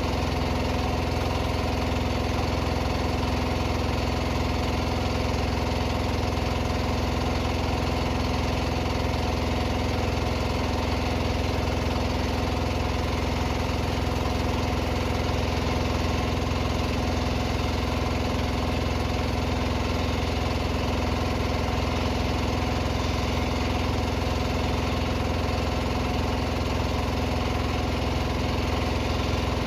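An engine running steadily at an even speed, its pitch and loudness unchanging throughout.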